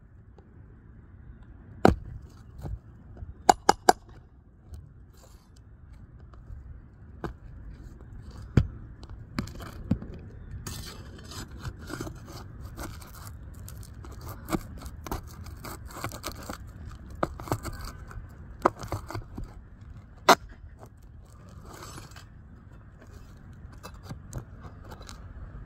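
Scraping and rustling with scattered sharp taps and clicks, as of hand tools working on asphalt roof shingles, with a quick cluster of three taps a few seconds in.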